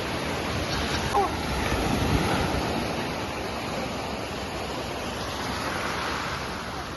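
Ocean surf breaking and washing onto a sandy beach, a steady rush of waves with some wind on the microphone. A faint distant voice is heard briefly about a second in.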